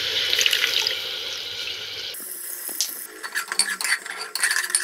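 Spice paste frying in hot oil in a pressure cooker, sizzling steadily while a steel ladle stirs it; about two seconds in the sizzle cuts off, and the ladle scrapes and clinks against the pot.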